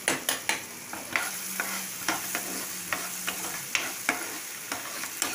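Spatula scraping and tapping in a non-stick frying pan as sauced vegetables are stir-fried, about two strokes a second, over a steady sizzle.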